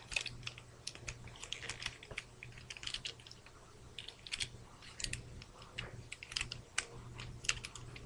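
Plastic parts of a Transformers Ironhide toy clicking and ticking as they are handled, folded and snapped into place during its transformation: a quick, irregular run of small clicks throughout.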